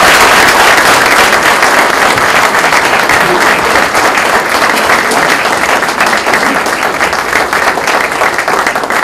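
Audience applauding, a dense, steady clapping that slowly fades toward the end.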